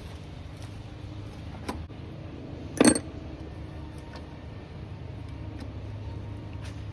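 A few scattered clicks and clinks of tools and parts being handled during an engine-bay teardown, the loudest a sharp knock a little under three seconds in, over a steady low hum.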